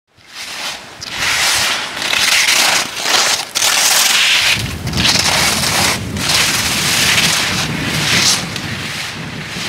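Ski edges scraping over frozen, icy mogul snow, a hissing scrape that swells and fades about once a second with each turn. A low rumble joins about halfway through.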